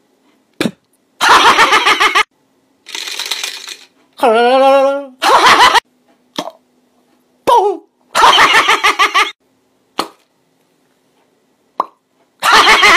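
A string of short, high-pitched comic voice clips and laughter, each starting and stopping abruptly with dead silence between them, with a squeaky voice rising in pitch a little after four seconds.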